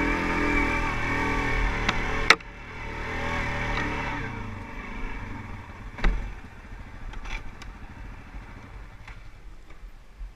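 Quad bike engine running loudly for about two seconds, then a sharp click and a sudden drop. A fainter engine sound follows and fades away, with a few clicks.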